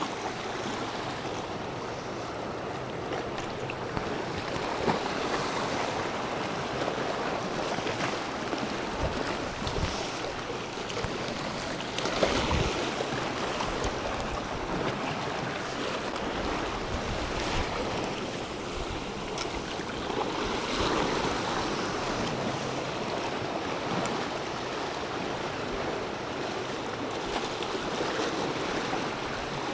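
Sea waves washing over shore rocks, a steady rushing of surf with a few brief low thumps.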